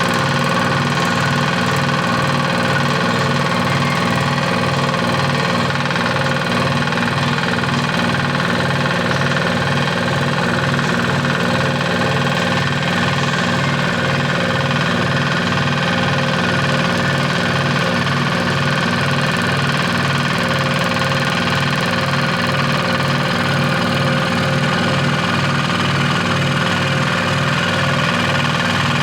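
Electric scroll saw running steadily, its reciprocating blade drive giving an even, rapid throb under a constant machine hum.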